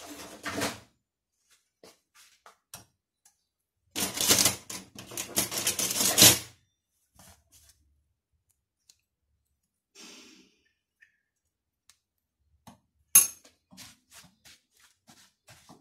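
A pink spatula scraping and stirring crushed biscuit crumbs with sweetened condensed milk in a glass bowl, in scattered short strokes. A dense stretch of scraping comes a few seconds in, and a single sharp tap near the end.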